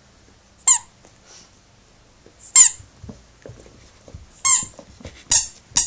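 Red rubber bone-shaped squeaky toy being bitten by a puppy, giving five short squeaks, the last two close together near the end, with faint scuffling between them.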